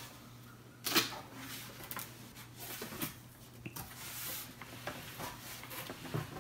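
Cardboard box flaps being opened and folded back by hand: scattered knocks, taps and cardboard rustles, with one sharp knock about a second in, the loudest sound.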